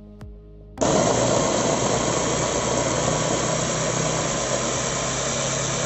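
Electric food chopper's motor switches on about a second in and runs steadily at full speed, grinding chunks of watermelon rind into a fine mash.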